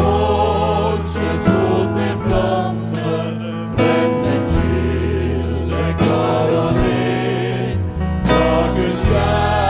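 Several singers singing a Norwegian hymn together in Norwegian, accompanied by grand piano, bass, drums and synth.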